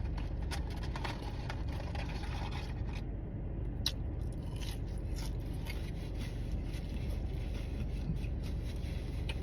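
Eating sounds: scattered soft crackles and rustles of a burger wrapper and chewing, over a steady low hum.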